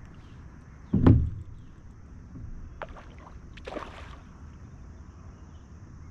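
Water splashing and knocking as a hooked smallmouth bass fights at the surface beside a kayak: one loud thud about a second in, then a few sharper splashes near the middle. Faint high chirps sound in the background.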